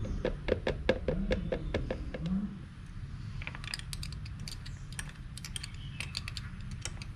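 Hand tools working on the motorcycle. First comes a run of quick, evenly spaced metallic clicks, about four or five a second, for some two and a half seconds. About three and a half seconds in, a looser cluster of sharp clicks and taps follows.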